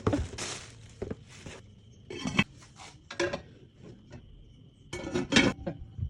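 Cast iron pots and lids being handled, knocking and clinking against each other in several short clatters, the loudest about five seconds in.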